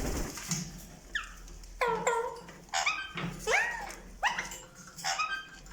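A series of about six short, pitched animal calls, each starting sharply and sliding in pitch, repeated roughly every two-thirds of a second. These are either parrot calls or a dog's yips.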